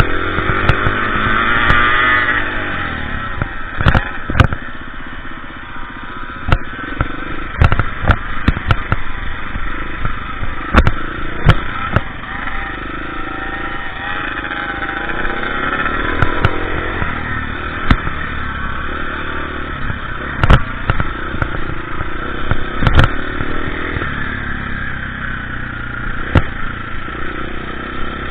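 KTM EXC 350 dirt bike engine running under load off-road, its pitch rising and falling with the throttle. Frequent sharp knocks and clatters are scattered throughout.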